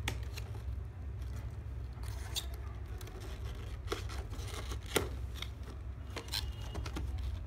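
Cardboard box being opened by hand: a coin scraping along the sealed edge, then flaps lifted and an inner tray slid out, giving scattered scrapes, clicks and paper rustles. A steady low hum runs underneath.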